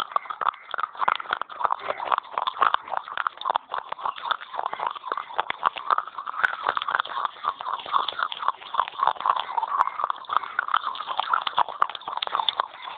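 Close-up chewing and crunching of pieces of a baked clay pot, a dense run of fast, crisp crunches.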